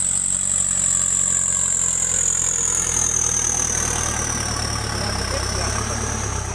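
Turbocharged diesel tractor engine running with a sweet, high turbo whistle over a steady low drone; the whistle slides down in pitch as the tractor passes and moves away, fading near the end.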